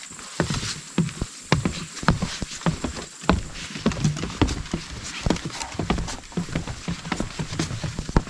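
Footsteps on a wooden boardwalk: irregular hollow knocks of shoes on the planks, about two a second.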